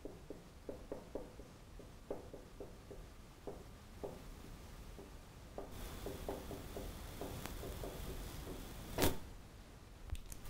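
Dry-erase marker writing on a whiteboard: a faint, uneven string of short taps and strokes as symbols are written. A sharp knock about nine seconds in is the loudest sound.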